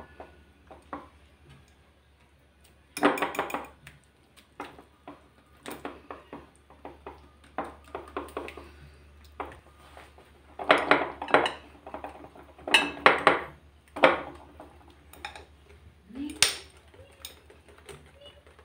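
Wire whisk beating a thick batter in a glass bowl: irregular bursts of rapid clinking and scraping of metal wires against the glass, loudest about three seconds in and again through the middle, with softer ticking strokes between.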